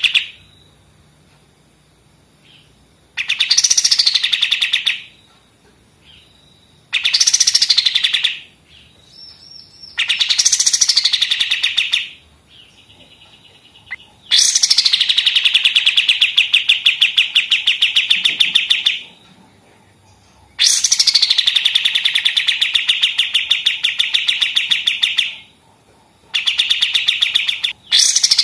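A kapas tembak (bulbul) singing its fast rattling "machine-gun" song over and over. Each phrase opens with a quick downward whistle, then runs into a rapid string of sharp repeated notes. There are about seven phrases with short pauses between them, and the two in the middle run longest, about five seconds each.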